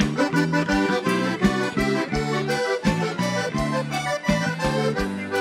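Accordions playing an instrumental passage of a gaúcho dance song, sustained chords with a steady, evenly repeating low bass beat underneath.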